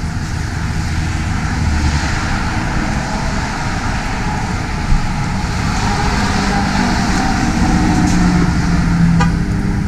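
Steady road traffic noise with a vehicle engine hum that grows louder over the second half, and a single short click about five seconds in.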